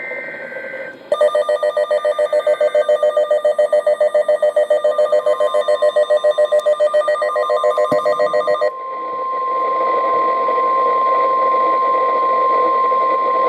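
NOAA Weather Radio alert for a snow squall warning. A two-tone SAME data header burst ends in the first second. Then a weather alert radio's electronic alarm beeps loudly at about four pulses a second until about nine seconds in, while the steady 1050 Hz warning alarm tone starts about five seconds in and holds over radio hiss.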